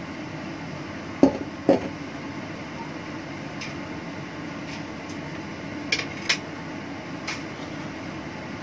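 Kitchenware clatter: a handful of short, sharp knocks of dishes and utensils at the counter, the two loudest a little over a second in and three lighter ones later, over a steady background hum.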